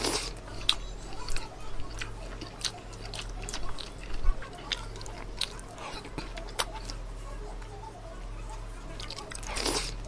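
Close-miked chewing and biting of fried samosa pastry: many short, sharp crunches and wet mouth clicks, with a louder breathy rush near the end. A steady low hum runs underneath.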